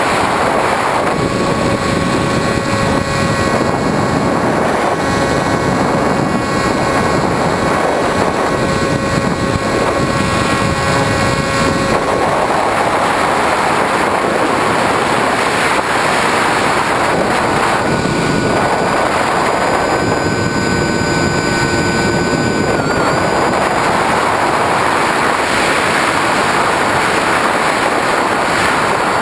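Onboard sound of a Skywalker FPV foam plane in flight: wind rushing over the camera microphone with the electric motor and propeller whining. A steady whine runs through the first dozen seconds and drops out, then a higher whine comes back for several seconds, wobbling briefly before it fades.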